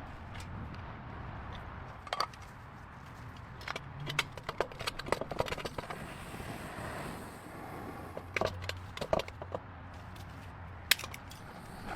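Irregular sharp clicks and knocks of hand tools working on an engine, coming in small clusters, over a low steady hum, with a soft brief hiss about halfway through.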